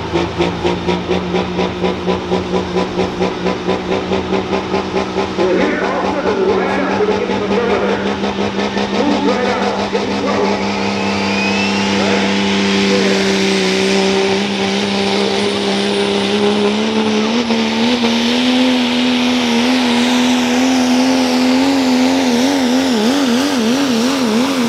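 Diesel pulling truck (a Dodge Ram) with its engine held at high revs, the sound pulsing about three times a second, then running flat out under load as it pulls the sled, with a hiss building high up. Later the engine pitch steps up, and near the end it wavers rapidly up and down.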